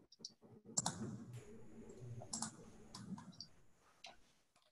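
A few scattered sharp clicks, two of them in close pairs, over a faint low hum.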